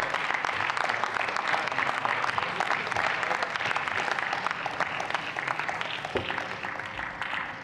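Members of parliament applauding at the end of a speech: dense clapping that thins and fades out near the end.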